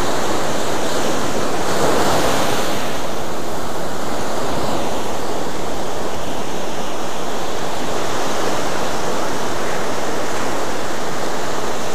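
Ocean surf breaking and washing up the beach, a steady rushing noise that swells slightly about two seconds in, with wind on the microphone.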